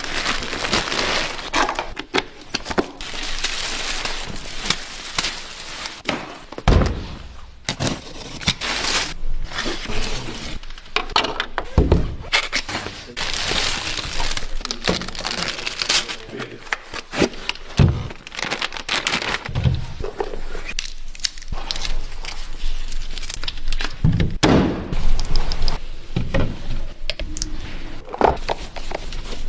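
Unpacking a motorcycle from its shipping crate: irregular knocks, thuds and cracks of crate parts being pulled apart and handled, mixed with crinkling packaging.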